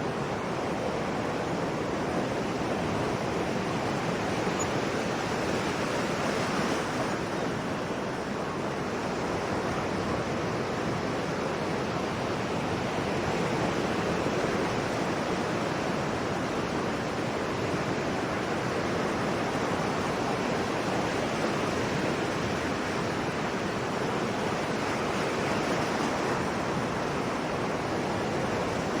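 Sea waves washing onto the shore: a continuous rush of surf that swells and eases slowly.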